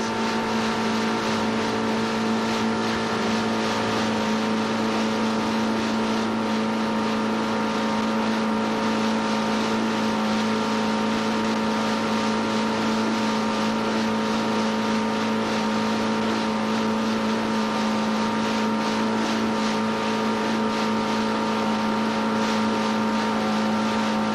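Outboard motor running at a steady throttle, a constant droning hum with a wash of water and wind noise.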